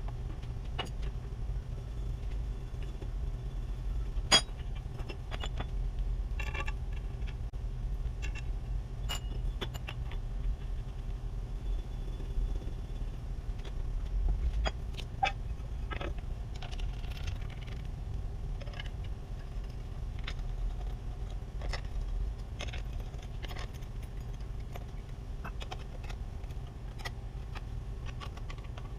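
Restored Dayton bench grinder's motor running with a steady low hum, while scattered light metallic clicks and taps sound over it, one sharp tap about four seconds in.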